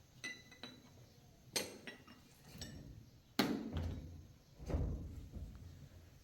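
A few irregular knocks and clatters of objects being handled, starting with a short ringing clink; the loudest knock comes about three and a half seconds in, followed by a duller thud.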